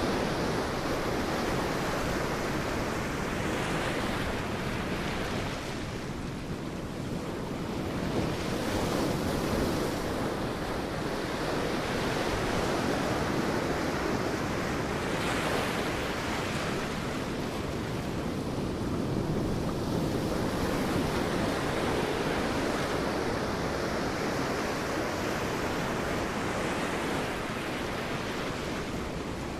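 Sea waves breaking on a beach: a steady rush of surf that swells every few seconds.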